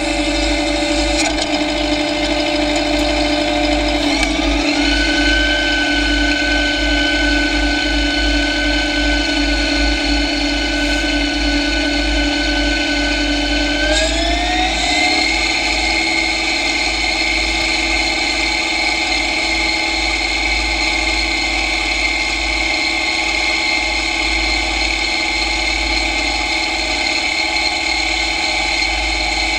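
John Deere tractor running under load while plowing snow, with a steady high gear whine over the engine; the whine's pitch rises in two steps, about four seconds in and again about fourteen seconds in, as the tractor speeds up.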